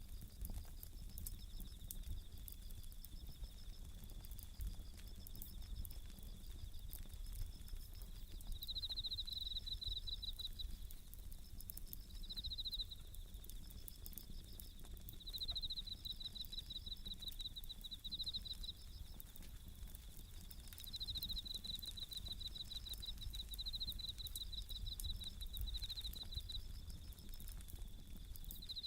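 Bell crickets (suzumushi) singing in repeated short ringing trills, overlapping one another, over the faint crackle and low rumble of a burning wood campfire.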